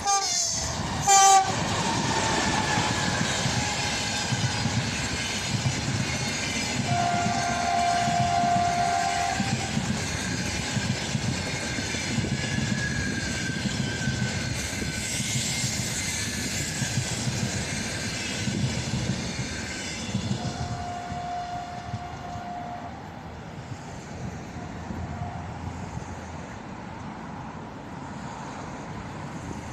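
Passenger train passing, with steady rumble and wheel clatter on the rails that fades in the last third. Its locomotive horn sounds twice, a few seconds in and again about two-thirds through.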